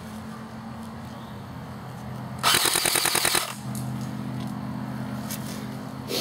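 Airsoft electric gun (AEG) firing one full-auto burst about two and a half seconds in, about ten shots a second for about a second, over a faint steady low hum.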